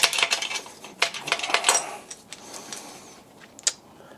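Main bearing caps and their bolts clinking against the engine block and each other as they are lifted out by hand. A quick run of metallic clinks comes in the first two seconds, then a few lighter taps and one sharp clink near the end.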